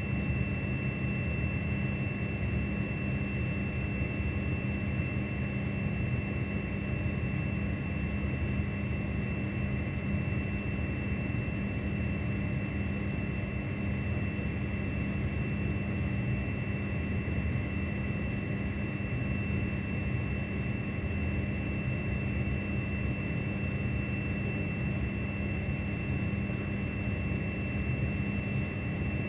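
Steady noise of a heavy tropical downpour mixed with the constant low rumble of traffic on an elevated highway.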